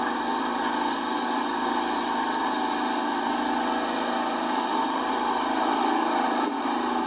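Pressure washer running steadily.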